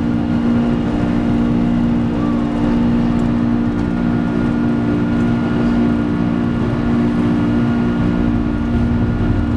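Steady noise on a Boeing 747-400 flight deck during takeoff: a loud, even rush of airflow and engine noise under a constant low hum, with no change in pitch.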